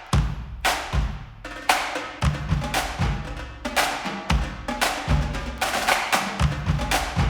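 Instrumental music led by drums: a steady beat of sharp drum strikes, about two a second, with low bass drum hits underneath.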